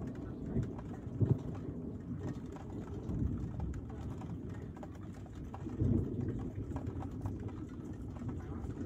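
Low rumbling of a thunderstorm with rain, swelling briefly about a second in and again around six seconds in.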